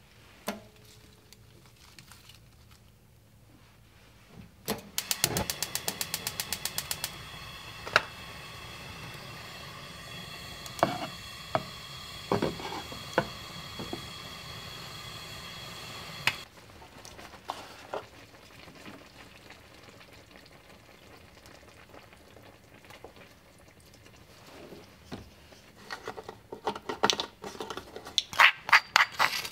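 Gas stove burner lighting: the igniter clicks rapidly for about two seconds, then the flame hisses steadily for about ten seconds and cuts off. A few knocks sound from the clay hot-pot lid, and a quick run of light clicks and taps comes near the end.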